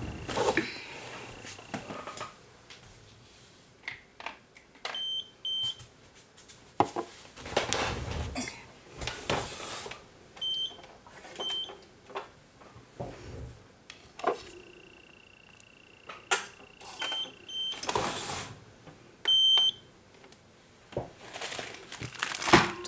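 Short, high electronic beeps in small groups of two or three, repeating several times, with a steady high electronic tone at times, amid clicks and rustling of small items being handled.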